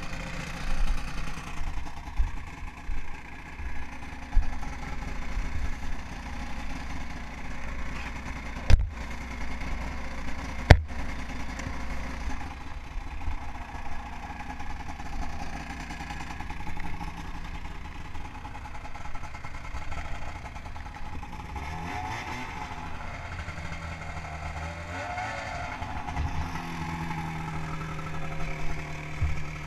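Snowmobile's Rotax 583 two-stroke twin engine running low while the sled sits stuck in deep snow, under irregular bumping and rustling as the rider works around it. Two sharp knocks come about nine and eleven seconds in, and near the end the engine settles into a steady idle.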